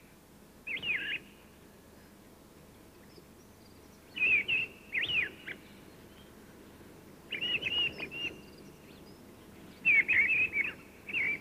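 A songbird singing four short whistled song phrases, a few seconds apart.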